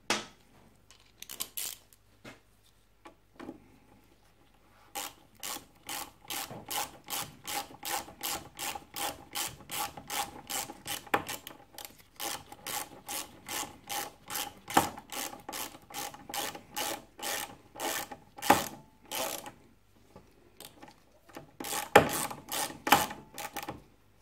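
Socket ratchet clicking as a small bolt on a motorcycle's front brake caliper is wound in, in a steady rhythm of about three strokes a second, with a few louder strokes near the end as it is done up.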